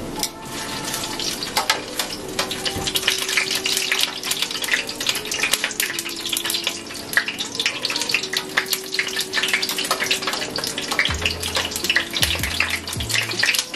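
Fresh garlic frying in hot cooking oil in a stainless steel pan: a steady, dense crackling sizzle.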